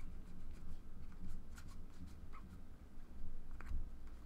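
Panini Prizm trading cards being slid and flipped through the hands, giving faint scattered ticks and soft scrapes over a low steady room hum.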